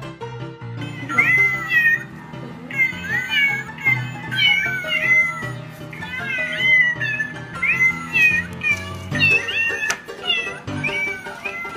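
A cat meowing over and over, a string of short high meows that rise and fall in pitch, over background music.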